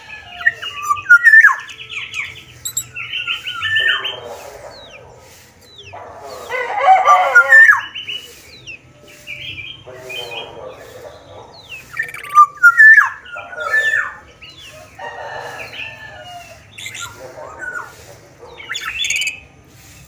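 A black-naped oriole (Sumbawa kepodang) calling vigorously in a series of short bouts: quick falling whistles, rattling trills and harsh, nasal notes. The loudest bouts come about seven and about twelve seconds in.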